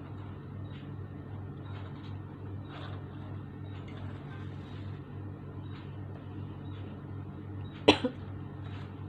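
Handling noises over a steady low hum: faint scattered clicks, then a sharp knock about eight seconds in, followed at once by a softer second knock.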